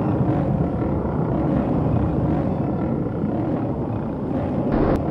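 Loud, steady, low rumbling sci-fi sound effect, with a short, sharper burst near the end.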